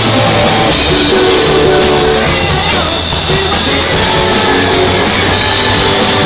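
Loud rock music played by a band, with guitar.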